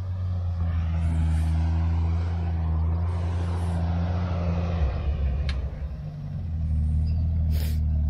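A vehicle's engine running steadily at low speed as it creeps into a parking spot. Its note drops briefly about five seconds in, then picks back up, and a short hiss sounds near the end.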